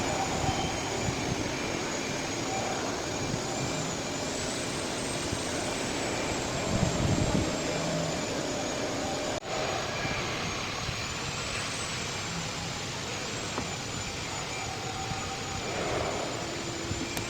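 Blue Elephant ES4-3620 bridge saw running and cutting, a steady grinding noise with a thin high whine that wavers slightly in pitch, briefly broken about nine seconds in.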